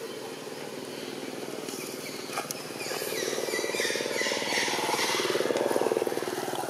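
A motorbike engine running nearby, getting louder from about halfway through and easing off near the end, as if passing by.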